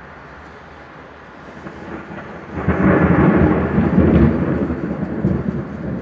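Thunder following a lightning strike: a rumble builds about two seconds in, turns loud for a couple of seconds, then slowly dies away.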